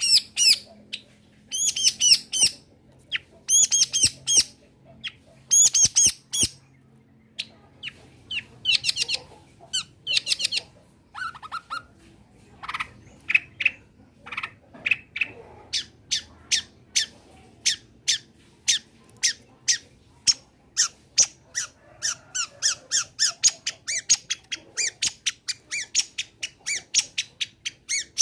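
Long-tailed shrike (cendet) singing: a few harsh, scratchy bursts in the first several seconds, then a long run of short, sharp notes repeated about three to four times a second.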